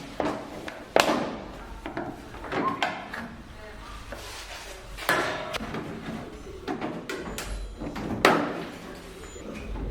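Scattered knocks and clanks of bodywork in a workshop, with three louder strikes: one about a second in, one near the middle and one near the end.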